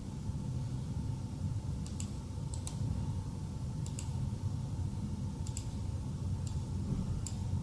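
Computer mouse button clicks, several scattered clicks with some in quick pairs, as diagram elements are selected and a right-click menu and dialog are worked. A steady low hum runs underneath.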